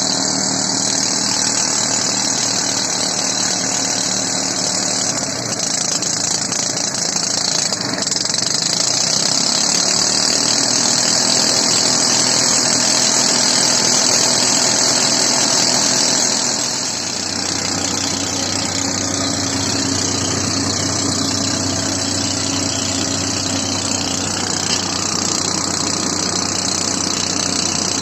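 A machine engine running steadily, with a strong hiss over it. About two-thirds of the way through, the sound dips briefly and settles into a lower hum.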